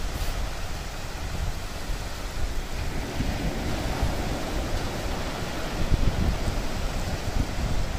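Sea surf breaking and washing up a flat sandy beach, with wind buffeting the microphone. The surf swells louder from about three seconds in.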